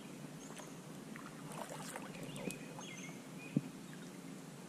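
Small water and handling sounds around a fishing kayak on a lake: light splashes and scattered small clicks and knocks against the hull, with one sharp knock a little past halfway. A few faint, short, high chirps come through behind them.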